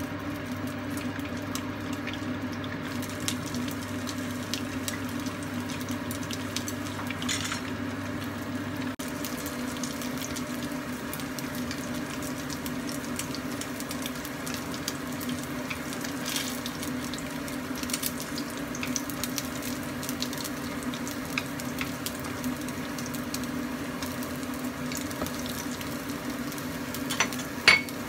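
Puffed tofu stuffed with minced fish sizzling steadily in shallow oil in a nonstick frying pan, over a steady low hum. Near the end come a few sharp clicks, the loudest sounds.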